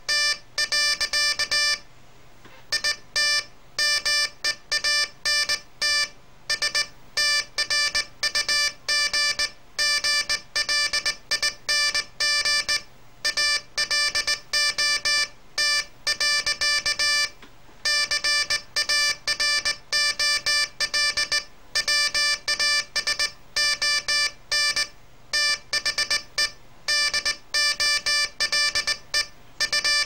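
Morse code sent by hand on a straight key, heard as a buzzy mid-pitched tone from a small loudspeaker, switched on and off in short dots and longer dashes with brief pauses between letters and longer ones between words.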